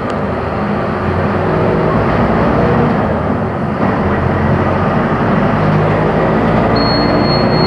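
Mercedes-Benz OF-1418 bus diesel engine running under way, its pitch shifting with engine speed over a steady rumble. Near the end a thin high whine joins briefly.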